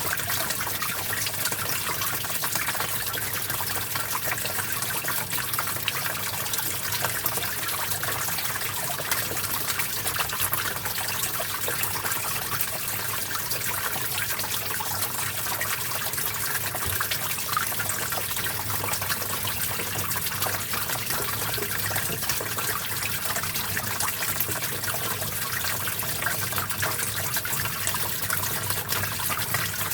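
Shallow stream of water flowing and trickling over stones, a steady bubbling rush.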